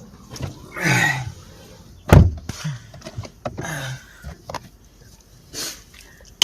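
A single sharp thump about two seconds in, with a few short, low vocal sounds from a person around it.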